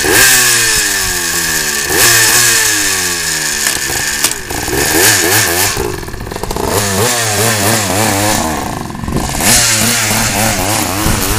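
Suzuki PE175 two-stroke dirt bike engine revved in repeated throttle blips, the pitch climbing and falling back each time, with quick choppy blips in the middle. The owner suspects a fouled spark plug or wrong jetting.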